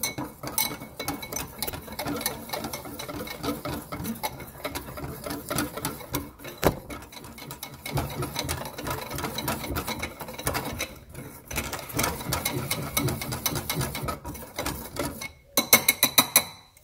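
Wire balloon whisk beating dry cornstarch in a ceramic bowl: a fast, continuous scratching and ticking of the wires against the bowl, with a few louder clicks near the end.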